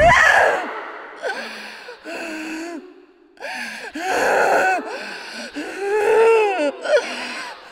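A woman's breathy, rasping vocal sounds: a string of short voiced breaths and moans with wavering, bending pitch, from a possessed woman in a horror scene.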